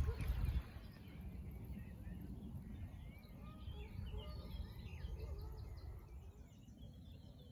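Small birds singing and chirping, with many short rising and falling calls from about two seconds in, over a steady low rumble that is louder in the first half-second.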